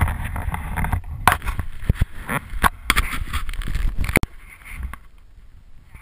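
Skis running through snow with wind buffeting the camera's microphone and scattered knocks and scrapes. It cuts off abruptly about four seconds in, leaving faint rustling.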